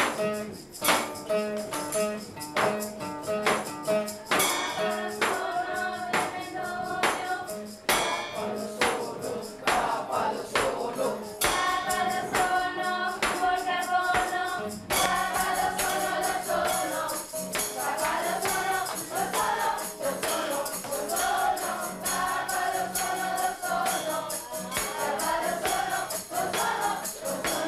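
A classroom group song: voices singing to a strummed acoustic guitar, with maracas, an egg shaker and a tambourine shaken on the beat. The singing gets fuller about halfway through.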